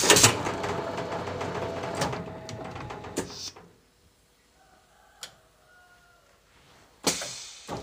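Plastic bottle blow-moulding machine working through its cycle: a loud hissing rush with sharp mechanical knocks that dies away after about three and a half seconds. After a few quieter seconds, another loud rush starts near the end.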